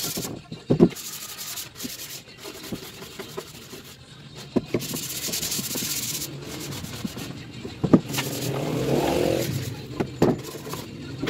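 Sandpaper rubbing by hand over the old varnish on a wooden stool, in stretches of back-and-forth strokes, with a few sharp knocks as the stool is handled on the bench.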